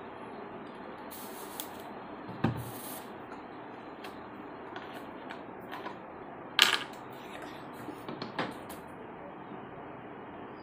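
Plastic bottles and a screw cap being handled on a table: scattered clicks, knocks and rustles, the sharpest about two-thirds of the way through, over a steady hiss.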